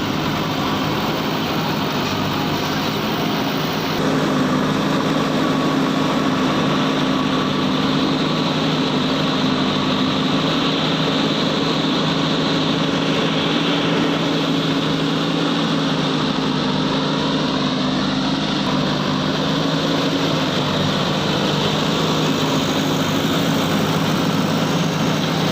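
Heavy diesel engine running steadily, from a backhoe loader or truck at work; it grows louder about four seconds in and holds that level.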